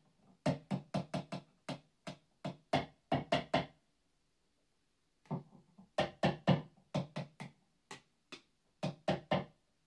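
Vintage '65 Jazzmaster single-coil pickups tapped through a guitar amplifier, giving two runs of short, sharp amplified knocks, a dozen or more each, with a pause of about a second and a half between them. In the second run the knocks drop quieter in the middle and come back up as the volume control is turned: a test that the pickups and volume circuit are wired correctly.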